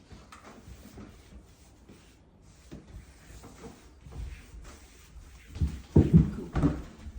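Scattered knocks and bumps from a large household appliance being handled, rising to a cluster of loud thuds about six seconds in.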